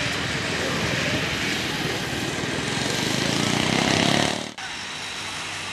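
Racing snowmobile engines at full throttle, their noise swelling for about four seconds as the sleds come down the drag strip; then an abrupt cut to a quieter, steadier engine hum.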